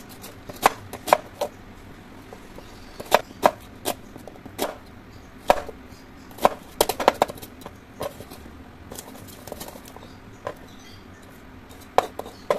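Kitchen knife slicing a red onion on a plastic cutting board: irregular sharp knocks of the blade reaching the board, some in quick runs of two or three, thinning out for a few seconds before the last strokes.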